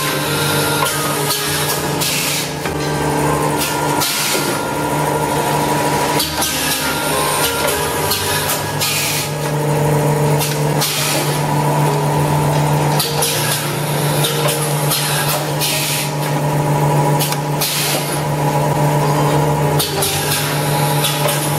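Automatic toilet-roll packing machine running: a steady hum with fixed machine tones, broken every couple of seconds by a short hiss of its pneumatic cylinders venting air, with light clacks of its moving parts.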